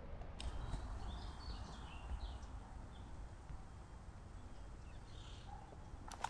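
Faint ambience: a low steady rumble with a few brief, faint high chirps scattered through it, and a couple of sharp clicks near the end.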